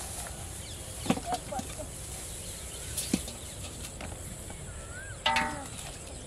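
Open-air ambience with a steady low rumble of wind on the microphone and faint bird chirps, broken by a few sharp clicks and rustles from the cane fishing poles being handled. A brief, louder pitched sound comes a little after five seconds.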